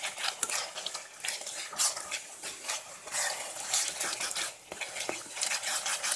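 Wooden spatula stirring chicken pieces through a watery sauce in a pot, in quick, irregular wet strokes.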